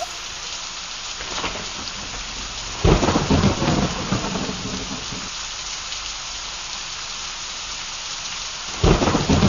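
Steady rain hissing, with two rumbles of thunder: one about three seconds in and another near the end.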